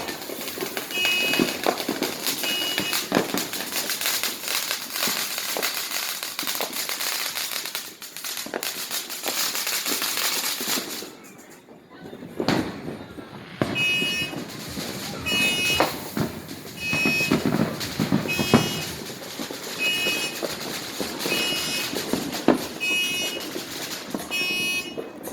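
Consumer fireworks going off: dense crackling and popping for the first half, a brief lull, then scattered bangs. Through the second half a short high beep repeats about every one and a half seconds, an alarm set beeping.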